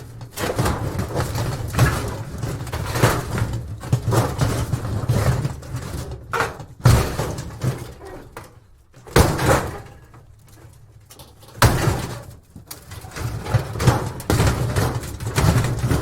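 Thin scrap metal and tin debris being shaken and dragged, rattling, scraping and clanking in irregular bursts. There are short lulls about halfway through, and heavier knocks about seven, nine and twelve seconds in.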